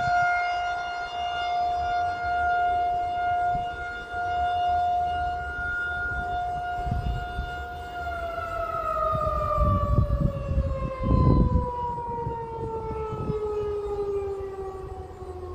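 Outdoor civil-defense warning siren sounding its monthly test: a steady wail that, about halfway through, begins winding down, its pitch falling slowly as the rotor coasts. Low rumbling noise swells in the middle, loudest for a moment just past the middle.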